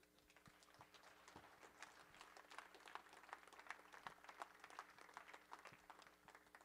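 Faint audience applause, a dense patter of claps that builds toward the middle and fades out near the end.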